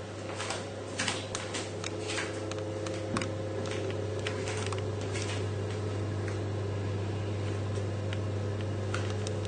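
A steady low mechanical hum, as from a fan or small motor, with scattered light clicks and knocks of kitchen handling, most of them in the first few seconds.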